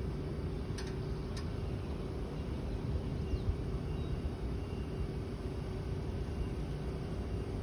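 Snorkel A38E electric boom lift's hydraulic pump motor running with a steady hum as the boom raises.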